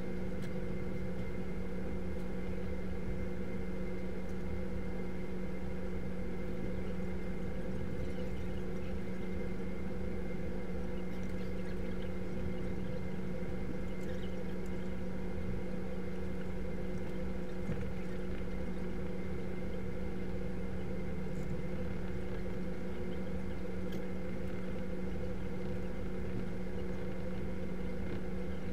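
Steady mechanical hum holding one constant pitch with fainter higher tones over a low rumble, unchanging throughout: room tone with a running machine such as ventilation.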